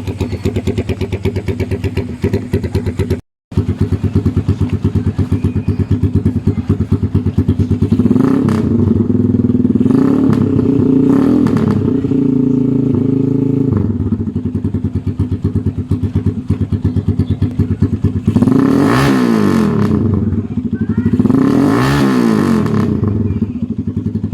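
Rusi Mojo 200 motorcycle engine running through an aftermarket Austin Racing canister muffler, very loud, with a quick, even exhaust beat at idle. It is held at higher revs for several seconds about a third of the way in, then revved twice near the end, each rev rising and falling back to idle.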